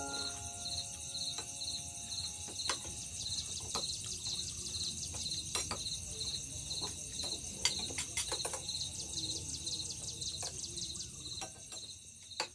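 Insects chirping in a steady pulse about three times a second over a constant high insect hiss, with scattered light clinks of spoons and forks against ceramic bowls and plates as people eat.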